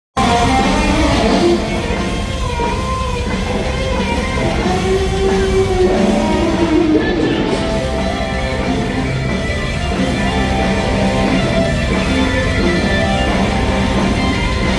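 Live rock band playing loud, with electric guitar to the fore, its notes sliding up and down in pitch.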